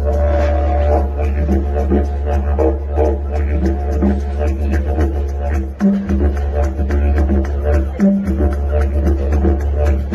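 Background music: a deep, steady drone under a melody and a regular beat, the drone breaking off briefly twice.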